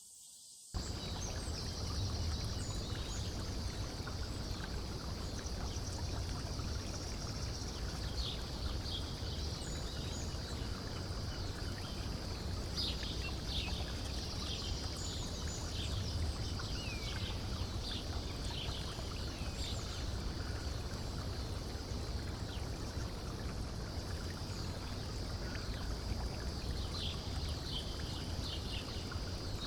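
Summer outdoor ambience that starts abruptly about a second in: a steady high cicada drone with many short bird chirps over a constant rushing noise.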